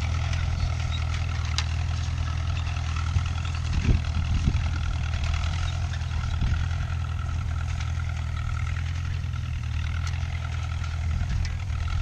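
Allis-Chalmers WD45 tractor engine running steadily under load as it pulls a tandem disc, a constant low drone. A couple of low thumps about four seconds in.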